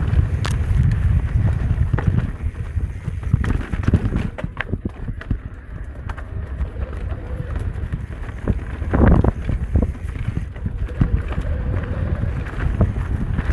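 Electric mountain bike riding down a dirt and rock trail: wind rushing over the microphone, with tyres rolling over the ground and frequent clicks and knocks from the bike as it bounces over rocks. There is a louder rush of noise about nine seconds in.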